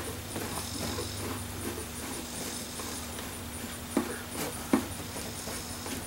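Gloved hands handling the plastic air box and its screw on an outboard motor: light rubbing and small squeaks, with a few sharp clicks about four and five seconds in, over a steady low hum.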